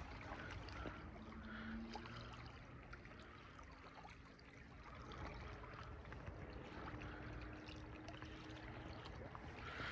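Faint lakeshore ambience: a distant motorboat's engine drones low and steady, with small waves lapping on the rocky shore and a few light ticks.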